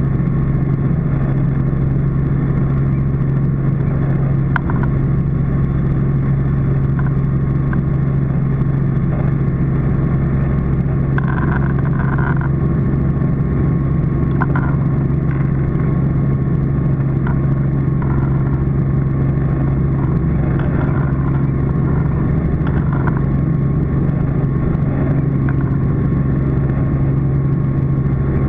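Robinson R44 helicopter's six-cylinder Lycoming piston engine and rotor running steadily, heard from inside the cockpit as a constant low drone.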